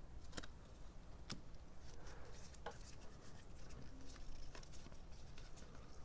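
Faint, scattered clicks and soft rustling of cardboard trading cards being flicked through one after another in gloved hands.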